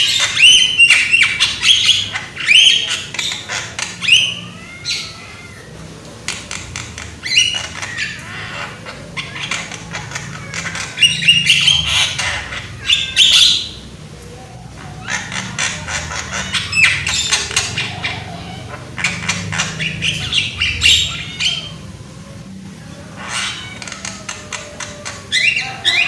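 Javan myna calling loudly in bouts of harsh, rapid chattering and squawking notes, each bout a second or a few seconds long with short pauses between.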